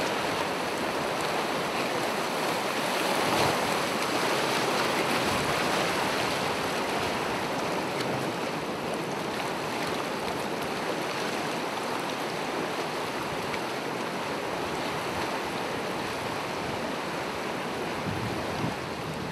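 Gentle ocean waves washing onto the shore in a steady surf rush, swelling a little near the start and easing off.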